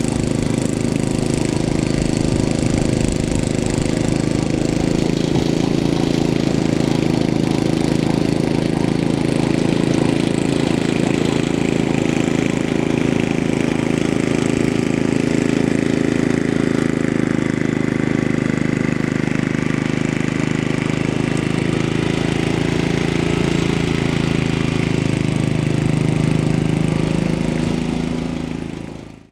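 Ariens Sno-Thro snowblower's 5-horsepower Tecumseh Snow King engine running steadily under load while its auger throws snow. The sound fades out near the end.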